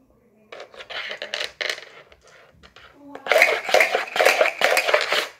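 Dice rattling and clicking inside a dice cup as it is swirled across a wooden floor to stack them. It comes in two spells, a shorter one about half a second in and a louder, longer one from about three seconds in.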